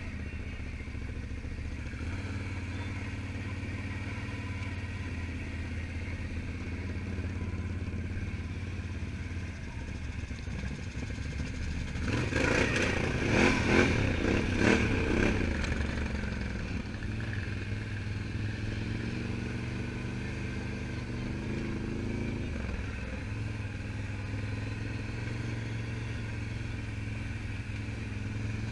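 ATV engines running at low speed with a steady low drone. About halfway through, a louder machine passes with a rattling clatter, and a few seconds later an engine revs up briefly.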